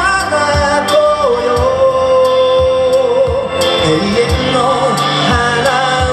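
A man singing live into a microphone while strumming his own acoustic guitar, holding one long note through the middle of the phrase.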